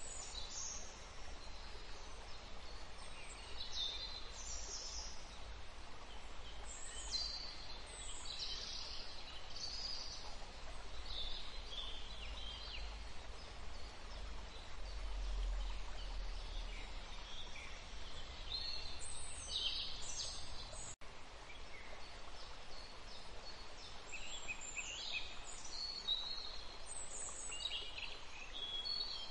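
Songbirds chirping and singing in short, high, downward-sweeping phrases every second or two over a steady background hiss, with a brief dropout about two-thirds of the way through.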